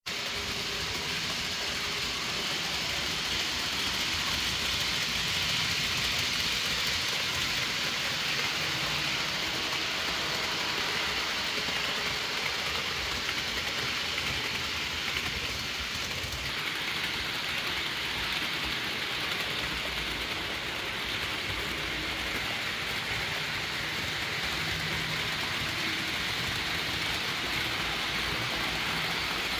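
HO scale model trains running on the layout: a steady rolling hiss and whir from the wheels on the sectional track and the locomotive motors, easing a little about halfway through.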